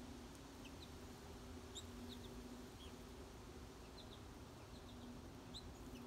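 Faint, scattered short chirps and tweets of small songbirds at a backyard feeder, a dozen or so quick high notes at irregular moments, over a steady low hum.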